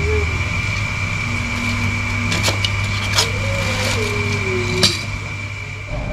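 A few sharp clicks and knocks of boxed servo motor hardware being handled and set down, the loudest near the end, over a steady low hum and a steady high whine.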